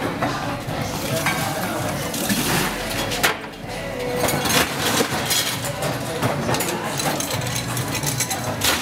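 Clinks and knocks of metal bar tools and glassware as a cocktail is mixed: a jigger and a steel shaker tin tapping against each other and against glasses, with a short rattling hiss about two seconds in.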